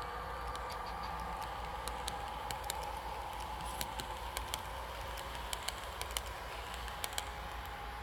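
HO-scale model passenger train cars rolling past on track, their wheels ticking irregularly over rail joints, about fifteen clicks that stop near the end as the last car goes by, over a steady hum.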